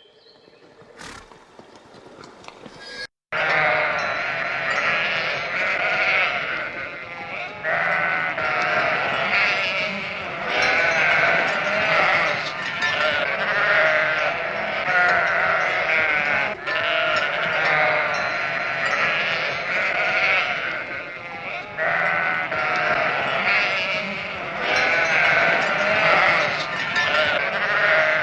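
A flock of sheep bleating, many voices overlapping almost without pause. A quieter stretch opens, cut off by a brief dropout about three seconds in, after which the bleating is loud and continuous.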